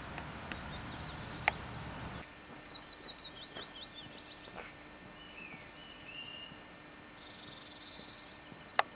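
Small songbirds singing: a quick run of about eight falling notes, then a few short chirps and a buzzy note. Underneath is a low rumble that stops about two seconds in, and two sharp clicks, one early on and one just before the end, stand out as the loudest sounds.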